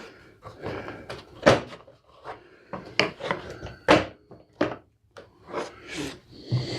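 Irregular sharp clicks and knocks of hard plastic being handled: the plastic front axle cover of a self-propelled walk-behind mower being pried and tugged while still held by a hidden screw.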